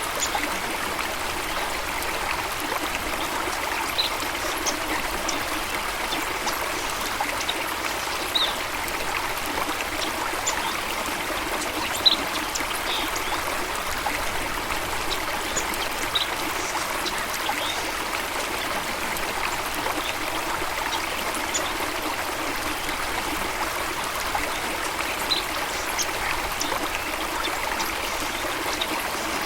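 Running water, a steady rushing flow, with scattered short, faint bird chirps every few seconds.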